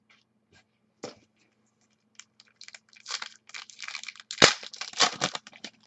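A trading card pack wrapper being torn open and crinkled by hand: a run of rough tearing and crinkling strokes that thickens from about two seconds in and peaks near the end. A faint steady electrical hum sits underneath.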